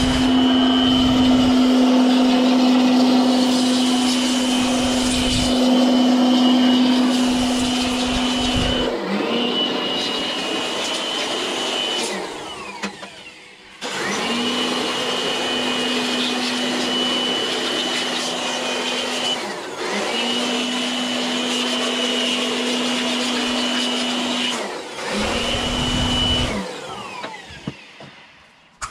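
Electric blower running with a steady motor whine, blowing dust out of a desktop computer case. It stops and starts again about four times, with a longer gap near the middle, and cuts off shortly before the end.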